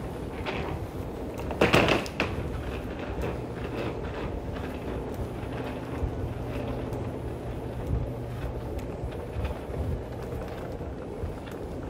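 Large airport terminal concourse ambience: a steady low hum with faint scattered knocks, and one brief loud clatter about two seconds in.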